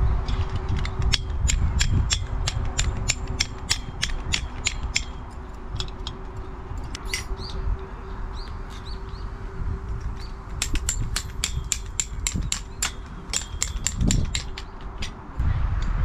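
A bird chattering in two bouts of rapid, harsh clicking calls, about five a second, with a few short chirps between them. Wind rumbles on the microphone underneath.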